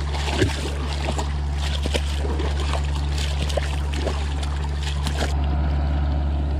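Small electric trolling motor's propeller churning and splashing through very shallow water, stopping about five seconds in, over a steady low hum.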